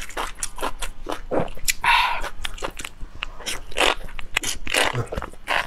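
Close-miked eating of enoki mushrooms in spicy broth: a mouthful being bitten, slurped and chewed, with many quick crisp crunches and wet clicks.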